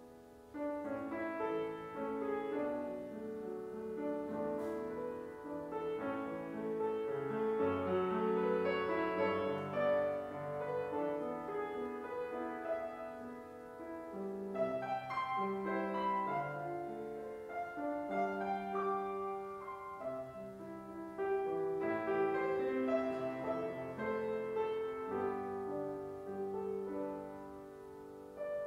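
Grand piano playing a solo piece, with held notes overlapping one another. It comes in about half a second in and eases to a brief lull near the end.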